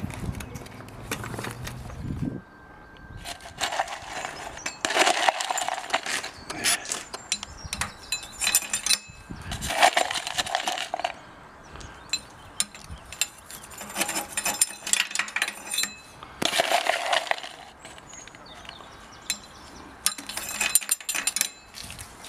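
Lumps of coal clinking and rattling as they are scooped and dropped into the firebox of a 5-inch gauge miniature steam locomotive. The clatter comes in about five short spells a few seconds apart.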